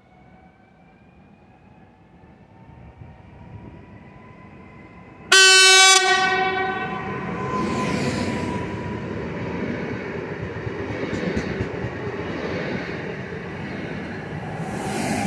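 EN90 (Pesa Elf 2) electric multiple unit approaching with a faint rising whine, then sounding one short, loud horn blast about five seconds in. It then rolls past with continuous wheel-on-rail noise.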